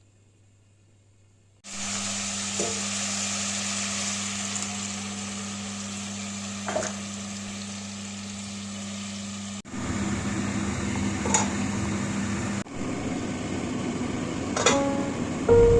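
Food sizzling as it fries in a cooking pot, over a steady low hum, with a few short clinks of a utensil against the pot. It starts abruptly after a moment of near silence and breaks off and resumes twice.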